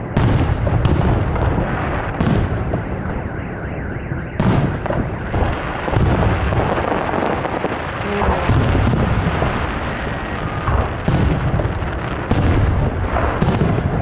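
Aerial fireworks shells of a salute bursting one after another: about a dozen sharp bangs, with a continuous rumble and echo between them.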